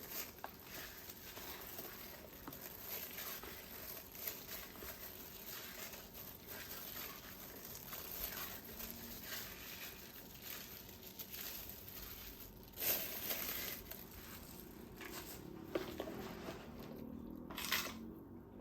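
Faint crinkling and rustling of plastic as food is handled with gloved hands, with two louder rustles, one about two-thirds of the way through and one near the end.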